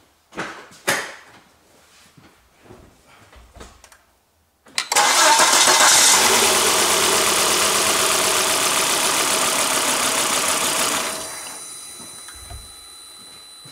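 Volvo 2.4-litre five-cylinder petrol engine turned over by its starter for about six seconds for a compression test, with a compression gauge fitted in place of one spark plug. The sound comes in suddenly about five seconds in and drops away near eleven seconds, after a few small handling clicks.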